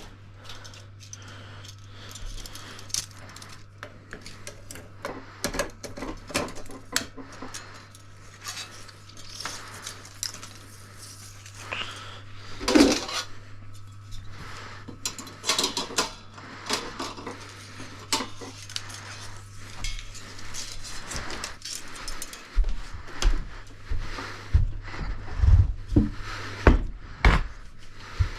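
Film being loaded onto a sound film projector: many light metallic clicks and clatters over a steady low hum. About two-thirds of the way through, heavier knocks set in, roughly one a second.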